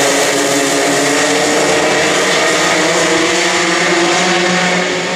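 Several two-stroke racing kart engines running hard together as a pack passes, their overlapping pitches drifting up and down as the drivers work the throttle. The sound eases slightly near the end.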